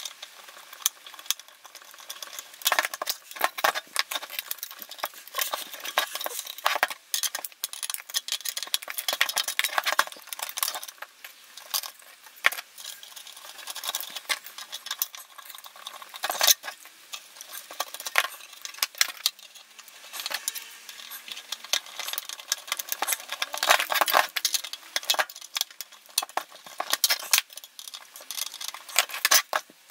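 Irregular small metallic clicks, clinks and scrapes as hand tools, a metal rod and pliers, work on the receiver's metal chassis, screws and brass connector. The clicks come thick and fast throughout, with louder clusters around a quarter of the way in and again near the end.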